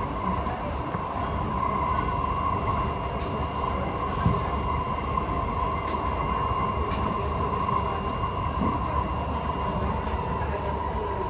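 Singapore MRT C151A train running steadily, heard from inside the carriage: a constant low rumble of wheels on rail with a steady whine over it. One brief click about four seconds in.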